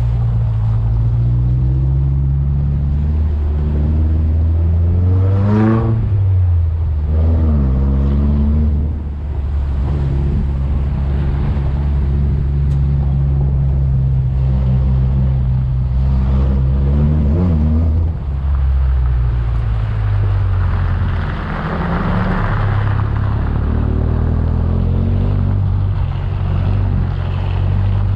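Off-road 4x4's engine pulling along a rough dirt track, its revs climbing and dropping again several times. Around twenty seconds in there is a rush of noise.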